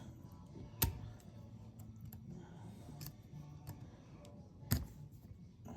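Small metal parts clicking and ticking as the advance springs are worked off an MSD distributor's weights by hand, with two sharp clicks about four seconds apart.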